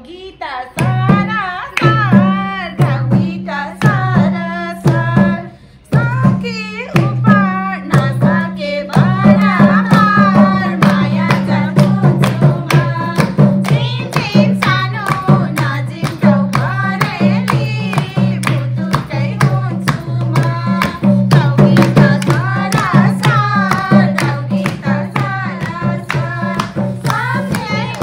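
A group of voices singing a Nepali dohori folk song together, with hand clapping over a steady drum beat.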